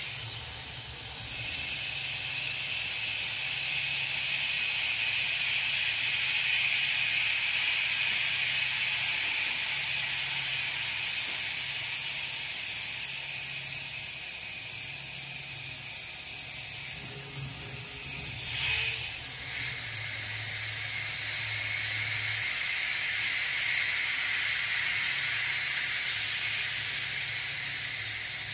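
CNC-converted Grizzly G0704 mill, belt-driven by a water-cooled 2.2 kW spindle, cutting aluminium. A steady hiss from the coolant nozzle is the main sound, with a high cutting whine that fades in and out and a brief rising sweep about 19 seconds in.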